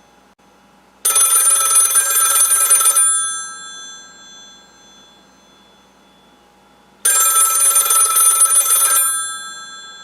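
Northern Electric model 554 rotary wall telephone ringing: its striker hammers two brass bells in two rings of about two seconds each, about four seconds apart, each bell tone fading away after the ring stops.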